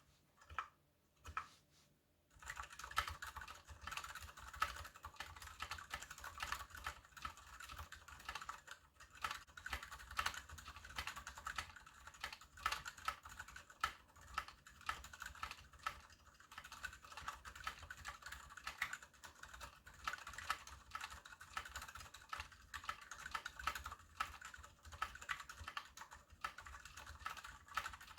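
Typing on a KBD75 mechanical keyboard with Gateron Silent Brown switches, a brass plate and PBT DSA keycaps: a few single keystrokes, then steady, fast typing from about two seconds in. The switches are muted tactiles, lubed with Krytox 205g0 without desoldering to ease their scratchiness.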